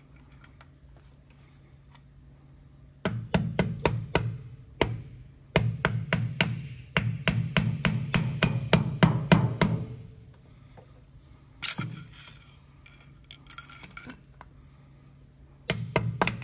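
Mallet blows on the end of a long screwdriver used as a punch, driving the broken stub of a Land Rover Series III half axle out of the differential housing. A rapid string of blows runs for about seven seconds, then comes a single blow, a few light taps, and another quick burst of strikes near the end.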